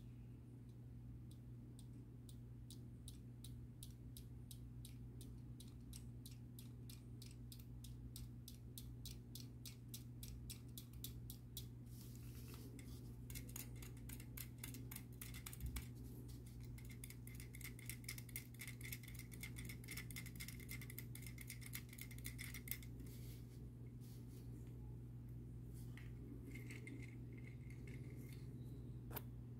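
Small plastic-and-metal toy mechanism clicking rapidly and evenly as the wheels of a Matchbox Superfast No. 73 Weasel diecast toy are turned; this is the Rola-matics gearing that turns the turret. The clicks speed up partway through, with a thin whirr, then slow to a few near the end, over a steady low electrical hum.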